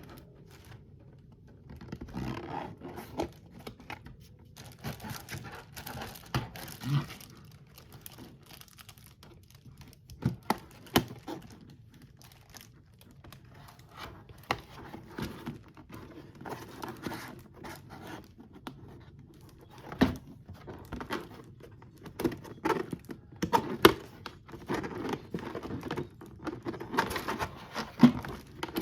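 Plastic packaging crinkling and tearing as it is unwrapped, in irregular rustles, with scattered sharp clicks and knocks of a hard plastic box being handled.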